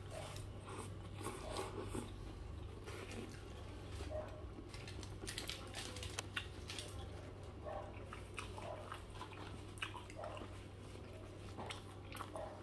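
A bite into a foil-wrapped burger, then close-up chewing with many small wet clicks, over a steady low hum.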